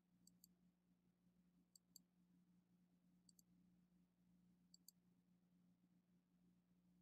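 Faint computer mouse clicks, in pairs about every one and a half seconds, over near-silent room tone with a low steady hum.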